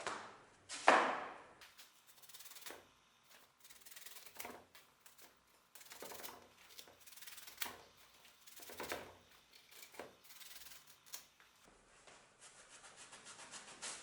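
Irregular hand-worked rubbing and scraping strokes, the loudest about a second in, followed by a run of shorter, uneven strokes.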